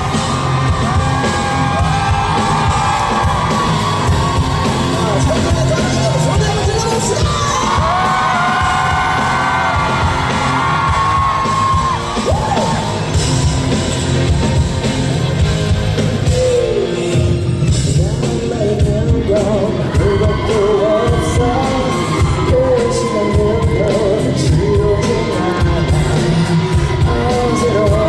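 Live pop-rock band playing loudly, with a male lead singer belting high sung lines over a heavy drum and bass beat.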